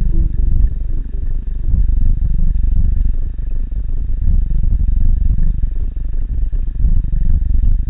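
Loud, low, muffled underwater rumble picked up by a submerged camera in a fish pond, a steady churning noise with no distinct tones.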